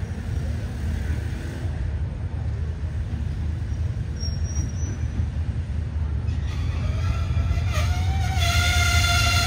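D19E diesel-electric locomotive approaching a level crossing, with a steady low engine rumble. Its horn comes in about six and a half seconds in and becomes a long, loud, held blast near the end.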